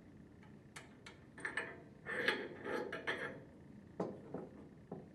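Metal parts clinking and clicking: a wrench working the nuts off a pump's packing gland, then the gland, nuts and wrench set down on a wooden bench. The clatter is busiest about two to three seconds in, with single clicks before and after.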